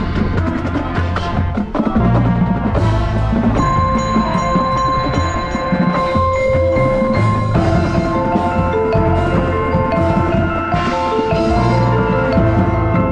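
Background music: bell-like mallet percussion notes over a steady low beat.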